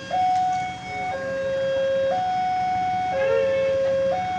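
Railway level-crossing warning alarm sounding its electronic two-tone signal, switching between a higher and a lower tone about once a second. It is the warning that a train is approaching the crossing.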